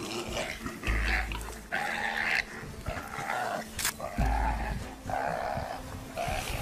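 An animal calling over and over, in short bursts of about half a second, roughly one a second.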